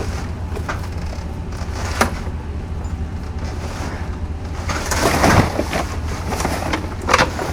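Scrap metal being handled: a few sharp knocks and, about five seconds in, a louder scraping clatter, over a steady low rumble.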